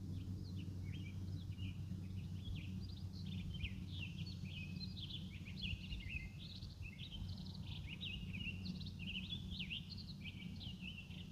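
Townsend's Solitaire singing its song: a long, jumbled, finch-like warble of quick whistled notes without a break, over a steady low rumble of background noise.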